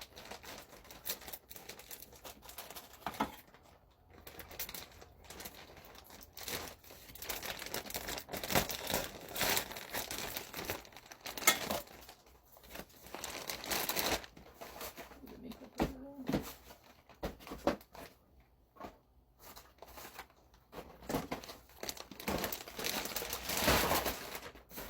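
Plastic bag and snack packaging rustling and crinkling as food is unbagged, in uneven bursts with brief pauses, with some tearing of wrappers.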